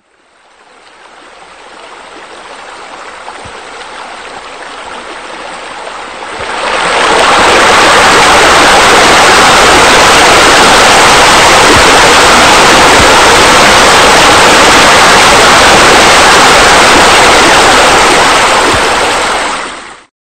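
Steady rush of falling, splashing water from pool waterfalls and a spa spillover. It fades in and swells slowly, grows much louder about six and a half seconds in, holds steady, then fades out near the end.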